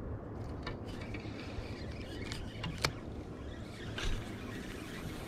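Handling noise: a few light clicks and rubbing as a fleece sleeve and hand brush against the camera while the fishing rod and reel are held, over a steady low hum.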